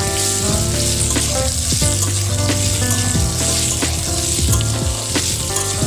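Boiled spiral pasta sizzling as it fries in hot oil in a wok, with onion and chilli pieces, stirred with a metal spatula that clicks and scrapes against the pan now and then.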